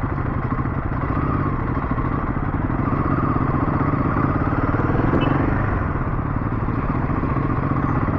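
Royal Enfield 452 single-cylinder motorcycle engine running steadily while riding, its pitch drifting a little up and down.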